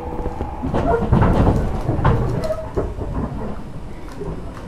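Inside a JR East 205-series electric commuter car: a steady hum, then about a second in a loud low rumble with clattering knocks that lasts about two seconds and eases off.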